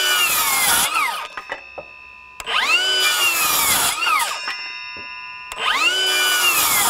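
Milwaukee M18 FUEL 6-1/2-inch brushless circular saw (2833-20) making quick crosscuts through a 2x6: a high motor whine that sags in pitch while the blade is in the wood and glides down as the saw spins down after each cut. Three runs: one ending about a second in, a full cut in the middle, and the next starting near the end.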